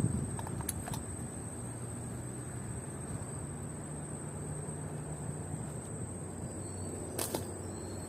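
Steady outdoor wind-and-water background with a faint low engine-like hum in the middle stretch and a constant thin high whine. A short sharp click comes under a second in, and another near the end.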